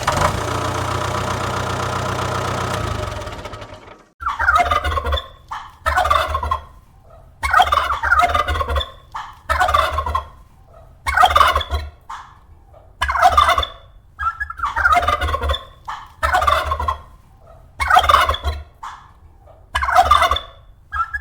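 A steady, many-toned held sound for about three and a half seconds, then a domestic farm bird calling over and over, a short warbling call about every one and a half to two seconds.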